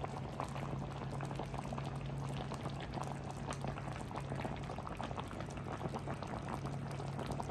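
A pot of vegetable and shrimp soup boiling: steady bubbling with many small pops, over a low steady hum.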